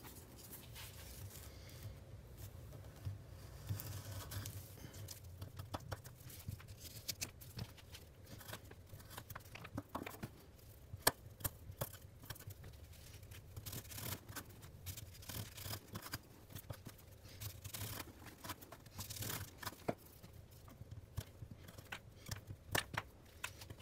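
Small fixed-blade neck knife cutting through a run of test materials on a wooden board: thick saddle leather, rubber gasket, water tubing and denim. It makes irregular short slicing and snipping cuts with sharp clicks as the blade pops through and taps the board.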